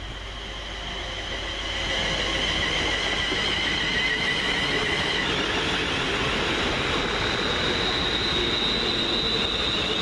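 Class 350 Desiro electric multiple unit on the move, with a high electric whine that grows louder over the first two seconds and then holds steady.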